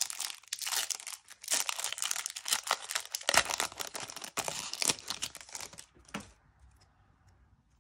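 Foil wrapper of a FIFA 365 trading-card booster pack being torn open and crinkled by hand as the cards are pulled out. The crinkling stops about six seconds in.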